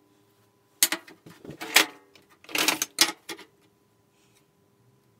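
Thin steel pieces clattering and scraping on a steel workbench as they are handled and laid down: a quick run of clicks and scrapes starting about a second in and stopping after about two and a half seconds.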